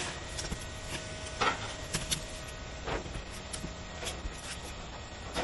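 Roofing work sounds: scattered scrapes and knocks of tools and boots, about half a dozen, over steady background noise, with a faint even hum through the first few seconds.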